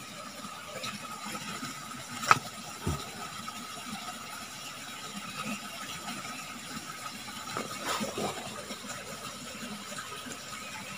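Quiet forest background beside a stream: a faint steady hiss with a thin, steady high tone, and a single sharp click about two seconds in.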